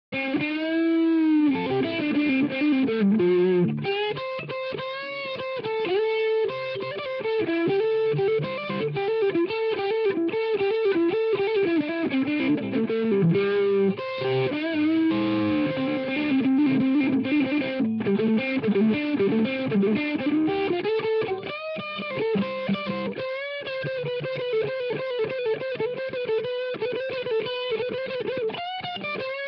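Red double-neck electric guitar played through an amplifier: single-note lead lines with wide string bends and vibrato, in phrases with short breaks between them.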